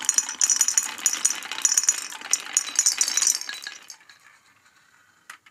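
Many marbles clattering down a wooden zigzag slope, knocking against the wooden baffle blocks, each other and a wooden bowl: a dense, rapid rattle of clicks that dies away about four seconds in, followed by one sharp click near the end.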